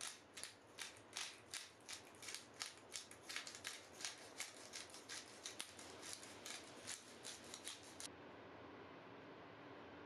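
Hand pepper mill grinding black pepper over a raw steak: a rapid series of short, crunchy grinding strokes, about three a second, that stop about eight seconds in.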